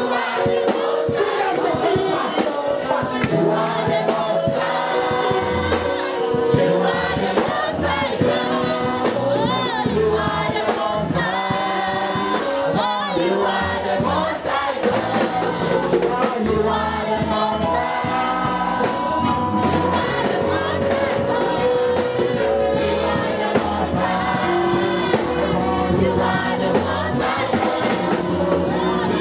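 Live gospel worship music: a choir singing with band accompaniment and a steady beat.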